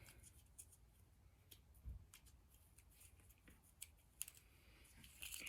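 Near silence with faint, scattered clicks and soft rustles of hands working tape on a stick, with a low thump about two seconds in.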